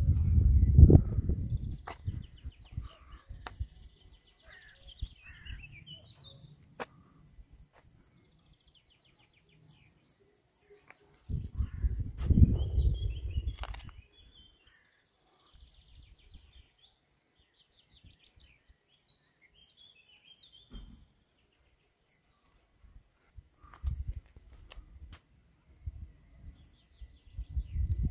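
Insects chirping in a steady, high, rapidly pulsing trill, over a few bursts of low rumble, the loudest one about twelve seconds in.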